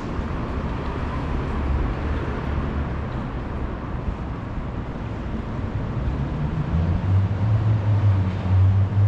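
City street traffic: a steady din of passing vehicles. In the last few seconds a low engine hum grows louder as a vehicle comes close.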